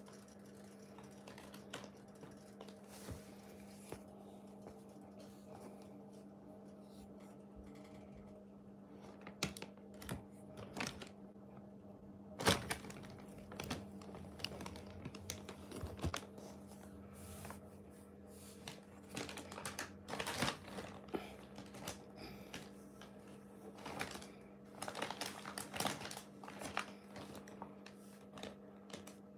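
Clear plastic bag crinkling and crackling in irregular bursts as a cat shifts inside it and paws at a plastic back-scratcher. A steady low hum runs underneath.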